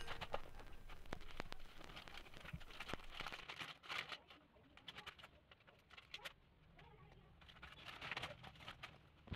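Faint rustling of plastic packaging and soft taps of a small cardboard box being handled and closed, busiest in the first few seconds, then only an occasional tick.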